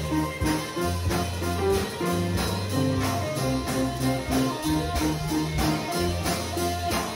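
A band playing live together: drum kit keeping a steady beat under electric bass and electric guitar.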